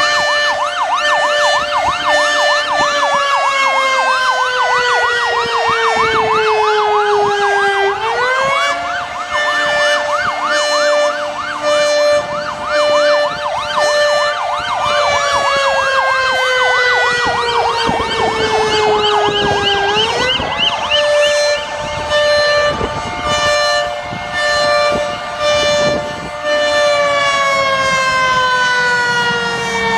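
Several fire truck sirens sounding together as the trucks leave the station. One wails, rising quickly and then sliding slowly down in pitch, climbing again about 8 and 20 seconds in. Another sounds in a fast yelp over much of the time.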